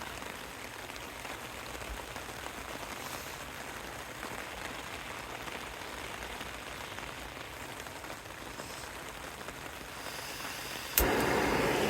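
Steady rain falling on a tent. About a second before the end, a sharp click is followed by a much louder, steady rushing noise.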